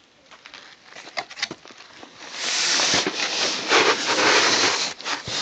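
A parcel's packaging being handled: a few light clicks and taps, then from about two seconds in loud, continuous rustling and scraping of packing material.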